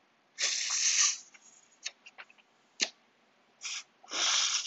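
Hard hissing rushes of air as a person sucks forcefully through the holes of an Apple AirPod with his mouth to pull out earwax and dust: a long draw about half a second in, a short one, and another near the end, with a few sharp mouth clicks between.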